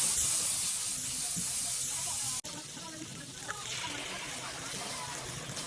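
Chicken sizzling in a frying pan: a steady hiss that drops abruptly about two and a half seconds in, then carries on a little quieter.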